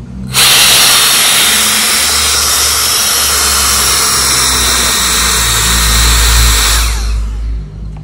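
Gale Force S mini jet fan, a handheld cordless blower with a motor rated at about 120,000 rpm, running in vacuum mode with its suction nozzle held against a cardboard box. A loud, steady high-speed rushing whine starts suddenly just after the start and winds down near the end; the suction is strong.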